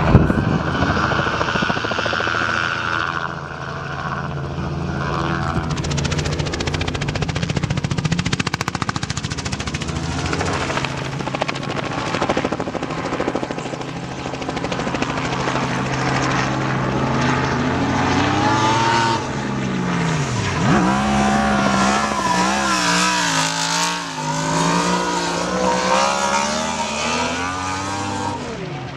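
Light helicopter running low overhead with a steady rotor beat, mixed with the engines of a Yamaha R1 sport bike and a Nissan GT-R. In the second half the engine pitch rises and falls over and over as they rev hard while drifting, with one sudden drop and climb back.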